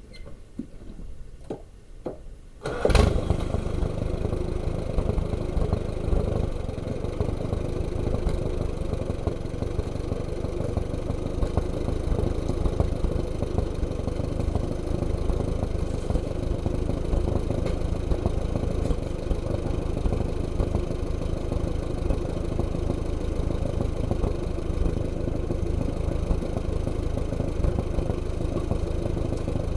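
Allis-Chalmers WD45 tractor engine starting about three seconds in, catching with a sudden loud burst, then running steadily at idle.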